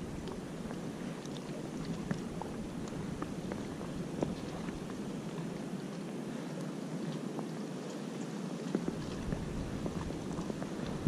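Wind and small waves lapping around a float tube, with scattered small ticks and splashes. A deeper wind rumble comes back about nine seconds in.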